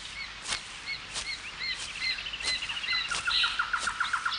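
Birds chirping: one bird repeats short high chirps again and again, joined by a fast trill about three seconds in, with faint regular clicks.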